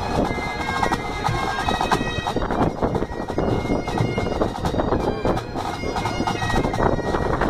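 Pipe band playing: Highland bagpipes with steady drones under a moving chanter melody, over a rapid beat of snare drums and the bass drum.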